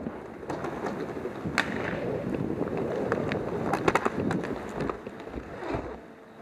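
Inline skate wheels rolling on a hard rink floor during roller hockey play, with sharp clacks of sticks and puck, the loudest a pair about four seconds in.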